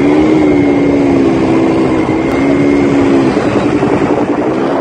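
Quad bike (ATV) engines running under throttle as the bikes ride over sand, a steady engine note that wavers a little in pitch and eases off briefly after the middle before picking up again near the end.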